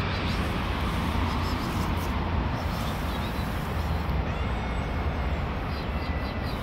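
Steady outdoor background noise with a low rumble throughout, and a few faint high chirps near the end.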